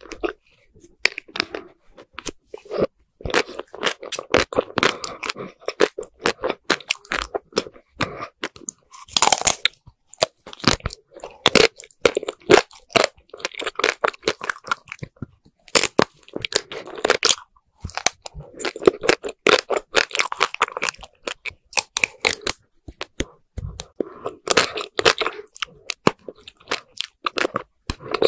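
Close-miked crunching and chewing of coated ice cream bars: the hard chocolate shell cracks between the teeth in dense runs of sharp crackles, broken by a few short pauses.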